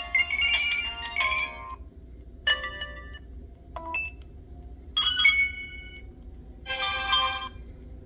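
Nokia 6205 flip phone's speaker playing its preloaded ringtones as they are previewed one after another: a polyphonic melody ends about two seconds in, then short alert chimes follow every second or two.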